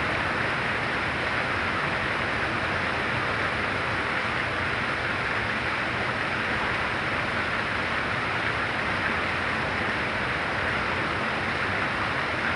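Very heavy rain pouring down, a dense, steady hiss with no single drops or breaks standing out.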